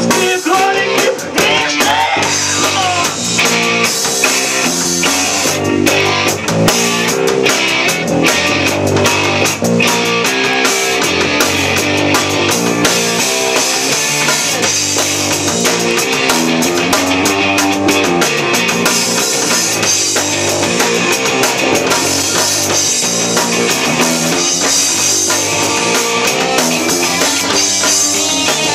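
Rock band playing an instrumental passage live: electric guitars over a steadily beaten drum kit.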